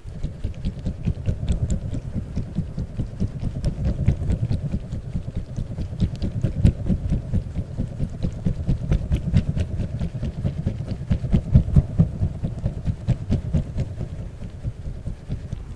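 A giant spiky orbeez ball handled close to the microphone, making a fast, continuous run of soft low thuds with faint clicks over them.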